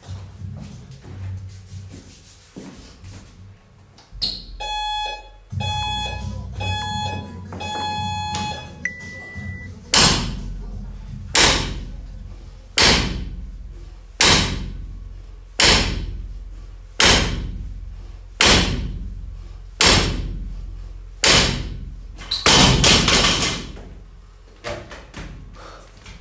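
Workout timer counting down with four short beeps and then one longer, higher start beep. Then a loaded barbell's bumper plates hit the wooden platform on each deadlift rep, about nine strokes roughly one and a half seconds apart, ending in a longer clatter as the bar is let go.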